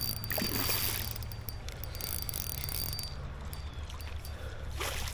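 Fishing reel ratcheting with rapid clicks and a thin whir while a hooked northern pike is fought in, stopping about three seconds in.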